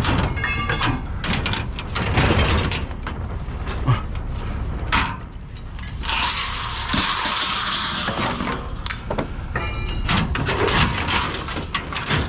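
Scrap metal clattering and knocking, many sharp irregular hits, with a rushing hiss from about six to eight and a half seconds in.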